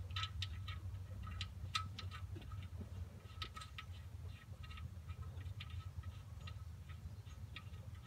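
Engine oil still dripping from the drain hole into the drain pan: faint plinks, about two a second and unevenly spaced, over a low steady hum. The last of the old oil is draining before the drain plug goes back in.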